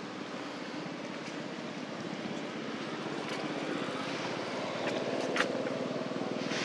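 Distant engine rumble that grows slowly louder toward the end, with a few faint sharp clicks, the sharpest a little over five seconds in.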